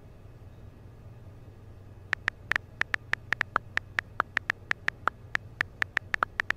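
iPhone keyboard click sounds as a text message is typed: a quick, even run of short clicks starting about two seconds in, roughly five a second, over a faint low hum.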